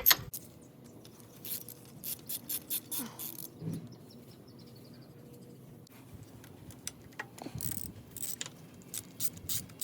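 Ratchet wrench clicking in short irregular runs as a tight, seized bolt is slowly backed out. There is a quieter spell of about two seconds in the middle.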